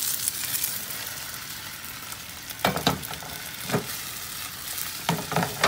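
Sautéed peppers and garlic tipped from one frying pan into another pan of caramelized onions in hot oil, giving a steady sizzle. A handful of short knocks of the pans and utensils sound through it, from about halfway in.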